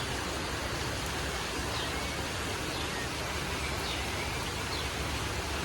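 Steady hiss of falling rain, with a few faint, short bird chirps now and then.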